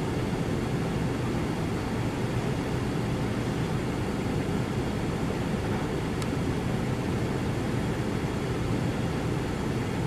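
Steady low engine drone that holds an even level throughout.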